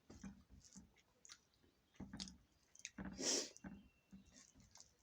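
Faint, irregular clicks and knocks, typical of kitchen utensils being handled during cooking, with a brief louder hiss about three seconds in.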